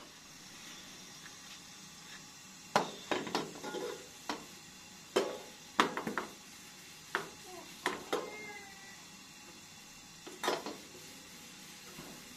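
Metal teapot being washed with a knitted dish scrubber: scattered clanks and knocks of the pot and its lid against each other and the tray, a dozen or so at irregular intervals.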